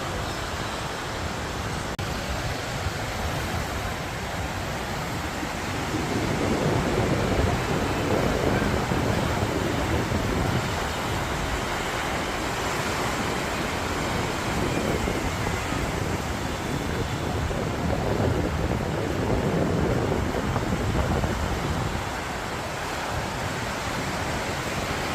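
Ocean surf breaking and washing up a sandy beach in a continuous rush. It swells louder about six seconds in and again near twenty seconds, as bigger waves break.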